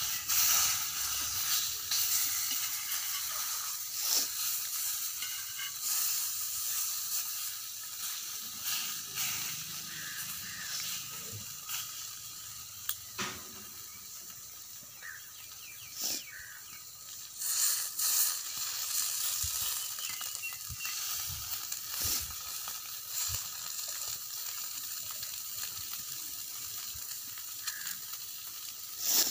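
Masala-coated whole fish sizzling on a hot flat griddle pan: a steady frying hiss with a few sharp pops scattered through it.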